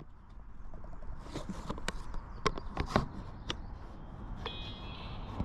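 Irregular light clicks and taps over a faint steady background, with a brief high chirp near the end.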